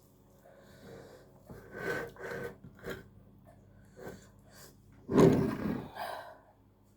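Close-up mouth sounds of someone eating: a few short noises, then a loud, breathy vocal sound through the nose and mouth about five seconds in.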